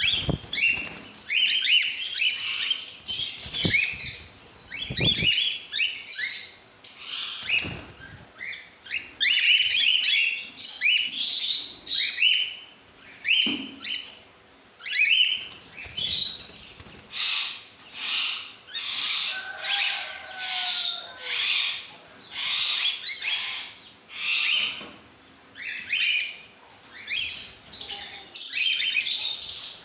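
A flock of cockatiels calling over and over with brief gaps. Runs of short rising chirps give way, from about the middle on, to longer harsh screeching calls.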